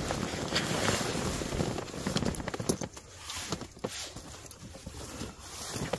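Rustling of hammock fabric and a sleeping bag being handled, with scattered small clicks; busy for the first two seconds or so, then quieter with a few sharp clicks.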